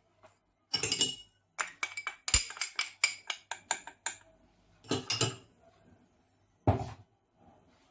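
Kitchen utensils clinking and knocking against a bowl in quick runs of sharp taps, with one heavier thump near the end, as ingredients are added and worked together.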